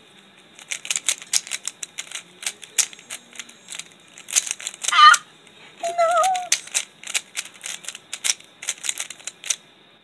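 Plastic 3x3 Rubik's cube being turned fast by hand, its layers clicking and clacking in quick irregular runs, several turns a second, during a blindfolded solve. About halfway through there is a short wavering squeak, the loudest moment, and just after it a brief lower wavering tone.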